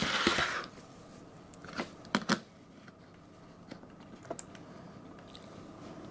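Hands handling an HO scale model locomotive and a metal coupler height gauge on the track: a brief rustling swish at the start, then a few sharp clicks about two seconds in and fainter ticks after.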